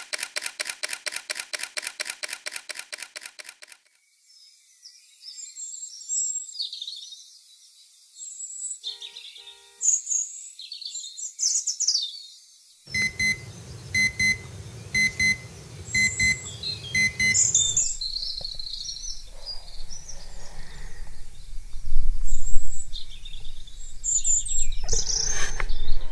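Songbirds chirping, then a run of short, evenly repeated electronic beeps, typical of an alarm clock going off.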